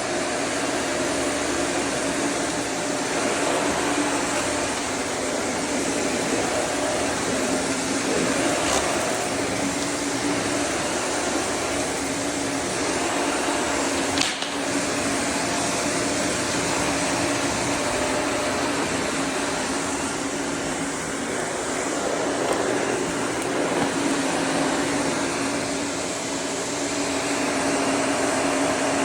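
Vacuum cleaner running steadily, a dense whooshing hum with a constant motor tone, with one brief knock about halfway through.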